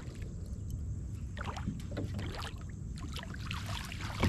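Water splashing and dripping around a kayak as a hooked bass is brought alongside, with many short irregular splashes over a low steady rumble.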